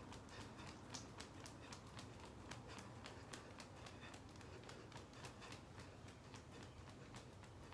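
Faint, rapid, irregular patter and rustle of a person shaking their hands and body vigorously, several light taps a second.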